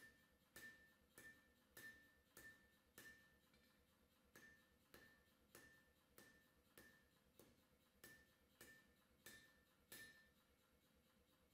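Hand hammer blows on a red-hot steel knife blade lying on an anvil, about one and a half a second, each with a short metallic ring. There is a brief pause partway through, and the hammering stops about ten seconds in.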